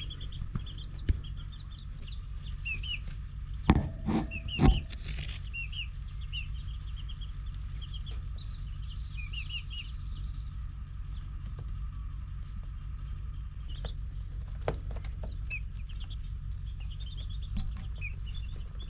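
Young chicks peeping: many short, high peeps all through, over a steady low hum, with two sharp knocks about four seconds in.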